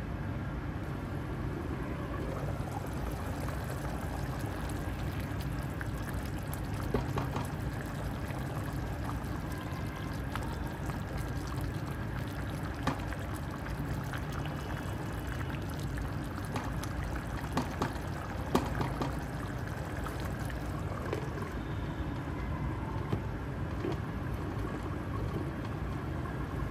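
Spiced meat broth with rice boiling in a steel pot, a steady bubbling, with a few light clicks of a spatula and a glass lid against the pot.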